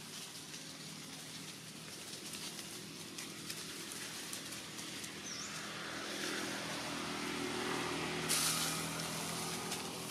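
A motor vehicle running in the background, swelling louder in the second half and easing off near the end, over faint rustling of dry leaves; a brief louder rustle about eight seconds in.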